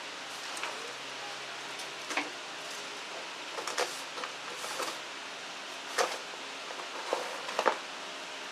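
Handling noises from unboxing an impact drill: irregular clicks, knocks and rustles of the tool and its packaging over a steady background hiss.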